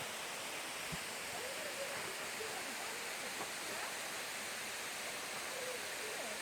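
Steady rushing of a small waterfall, an even wash of falling water.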